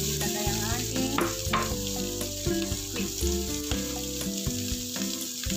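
Water bamboo wedges sizzling as they fry in a nonstick pan, stirred with a wooden spatula, with a couple of sharp clicks of the spatula against the pan about a second in.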